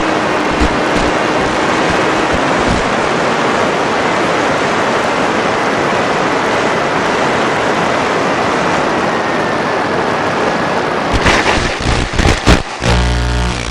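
Wind rushing past the onboard microphone of a Skyfun FPV foam plane in flight, with the electric motor's steady tone fading out about two and a half seconds in. About eleven seconds in comes a run of loud knocks and scraping clatter.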